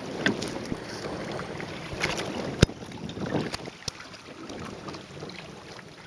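Hobie Tandem Island sailing kayak under way at sea: wind buffeting the microphone and water rushing along the hull, with scattered clicks and knocks and one sharp knock about two and a half seconds in.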